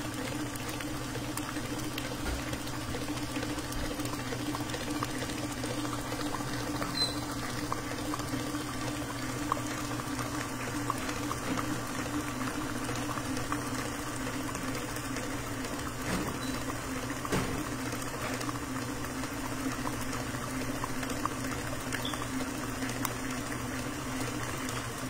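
Electric stand mixer running steadily, its whisk beating a liquid cheesecake batter in a stainless steel bowl: a constant motor hum with the wet churning of the batter. This is the final beating to bring the mixture to an even consistency.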